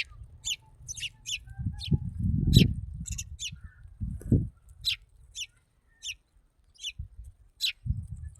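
Small birds chirping: short, sharp high chirps repeating about once or twice a second, over intermittent low rumbling noise that is loudest about two and a half seconds in.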